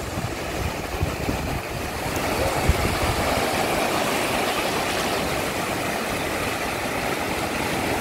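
Small waves breaking and washing up a sandy beach in a steady rush of surf.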